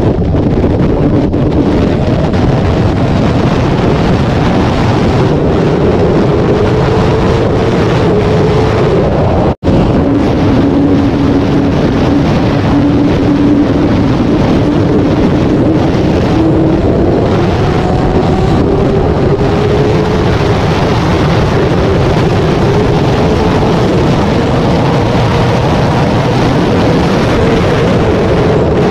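Honda CBR1000RR's inline-four engine pulling at highway speed, its note faint under heavy wind buffeting on the microphone and climbing slowly in pitch as the bike accelerates. The sound cuts out for an instant about ten seconds in.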